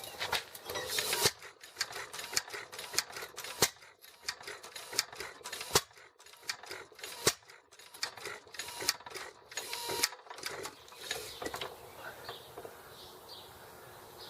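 Sattley hit-and-miss engine being spun over by hand without starting, its parts clicking and clacking irregularly, several times a second, stopping about ten seconds in. It is flooded, getting too much fuel.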